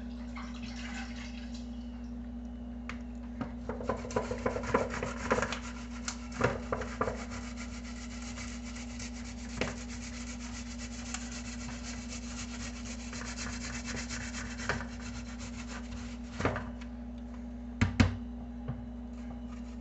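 Boiled potato being grated on a handheld stainless steel grater, a long run of fast rasping scrapes. A couple of sharp knocks come near the end.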